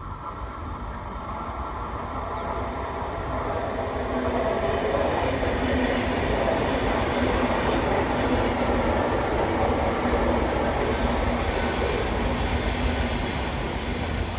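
Renfe electric commuter train running along the platform past the listener. It grows louder over the first few seconds, stays loud through the middle, and begins to fade near the end.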